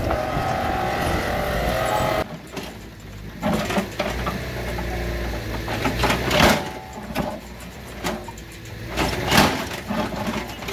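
Mini excavator's diesel engine running steadily, then abruptly quieter about two seconds in, with a low hum broken by several short loud bursts.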